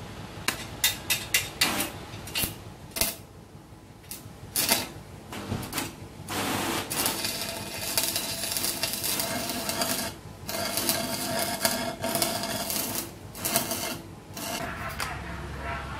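Electric arc welding on a motorcycle exhaust pipe. Short crackling bursts as the arc is struck and broken in the first few seconds, then long runs of steady crackle and hiss from about six seconds in, with brief breaks.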